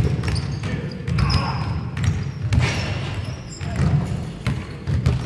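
A basketball bouncing on a hardwood gym floor during play, heard as repeated short thuds.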